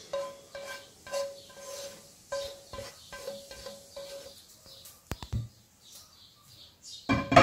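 Grated fried carrot being scraped from a frying pan into a glass bowl. The glass rings with a short tone at the same pitch each time it is struck, several times a second for about four seconds, then a few clicks and a loud knock near the end.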